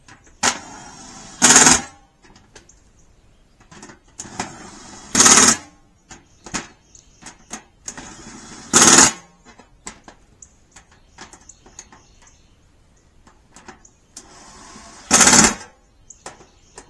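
Power drill driving screws down tight into wing nuts through the bed's metal panels: four times, a quieter spin of about a second builds to a short loud burst as the screw seats, with small metal clicks between.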